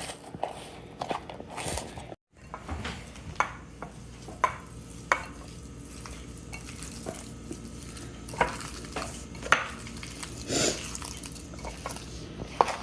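Mashed potato bhorta being mixed and worked in a dish, with soft squelchy handling and scattered light clinks against the dish.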